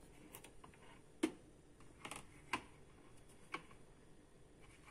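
A few faint, irregular clicks and taps, five or so spread over the few seconds, the sharpest about a second in.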